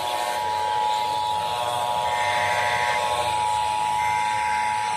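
Emergency Alert System attention signal: a steady two-tone beep at 853 and 960 Hz, played over FM radio with background hiss. It marks the start of a statewide monthly EAS test.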